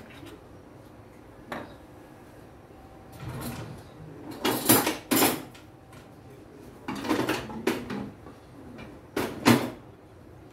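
Kitchen utensils and dishes clattering as they are handled, in several separate bursts, loudest around the middle and near the end.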